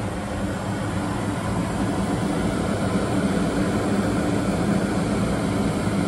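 Steady cabin noise of a Boeing 747-8 airliner in flight: an even rush of air with a low hum from the engines underneath.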